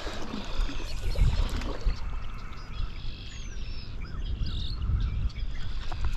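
Strong gusty wind buffeting the microphone, a pulsing low rumble, over the steady rush of a trout stream.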